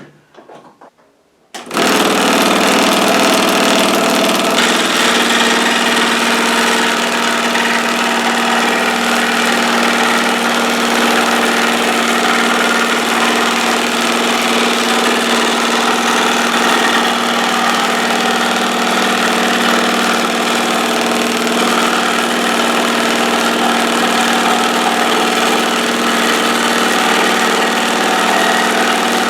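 Homemade wooden scroll saw driven by an electric motor, running steadily at speed. The sound cuts in abruptly after near silence about two seconds in and then holds even.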